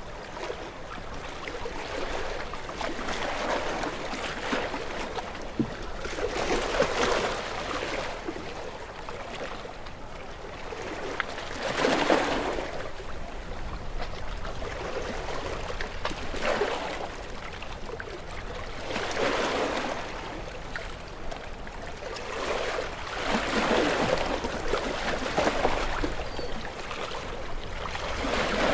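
Sea waves washing in, a rushing water noise that swells and ebbs every four or five seconds.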